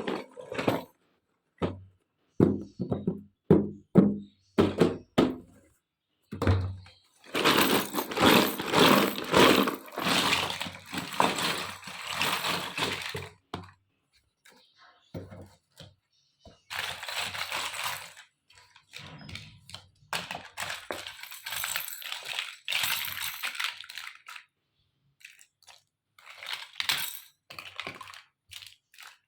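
Small plastic toy kitchen pieces being handled during unboxing: a run of separate clicks and taps, then long stretches of packaging rustle, then more clicks and taps near the end.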